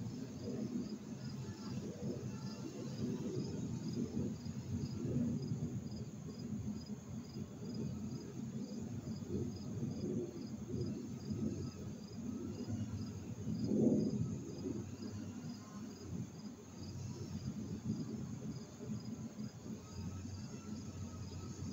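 A cricket chirping steadily, about two chirps a second, over a low, uneven background rumble that swells briefly about two-thirds of the way through.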